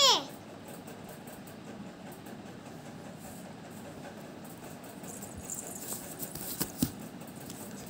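Low steady room noise with a few faint rustles and small knocks, about five to seven seconds in, from the child moving about. At the very start comes the cut-off end of a child's loud, high call.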